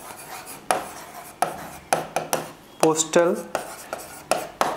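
Pen strokes on an interactive whiteboard: a run of sharp taps and short scratchy strokes as letters are written, about one or two a second.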